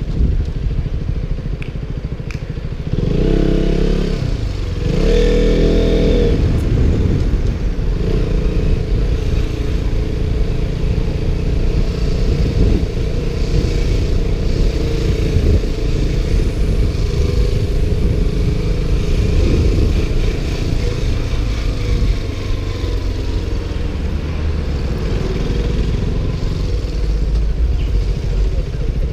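KTM Duke motorcycle engine running under way, revving up twice a few seconds in. Wind buffets the GoPro's microphone in its waterproof case throughout.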